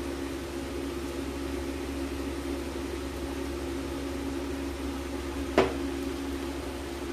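Steady machine hum with a low drone, and one sharp click about five and a half seconds in.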